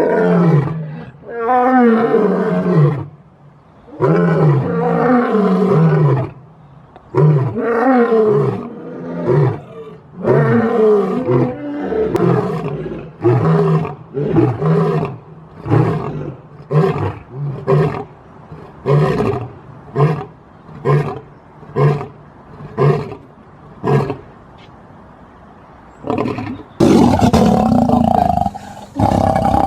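Lion roaring: several long, deep roars give way to a run of shorter grunts, about one a second, that get shorter and fade out, the usual close of a lion's roaring bout. Another loud sound breaks in near the end.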